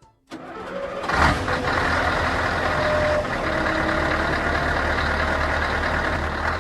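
A motor vehicle engine starting up and then running steadily.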